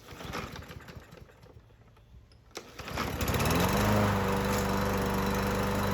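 Briggs & Stratton 550EX single-cylinder mower engine pull-started, catching about two and a half seconds in, rising in pitch and settling into steady running with its freshly cleaned carburetor.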